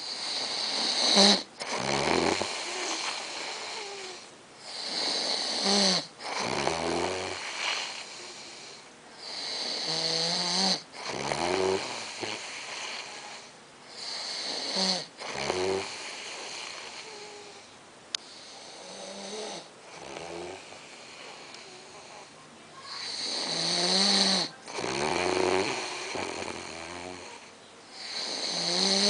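A man snoring loudly, one snore about every four to five seconds, with a couple of weaker snores past the middle.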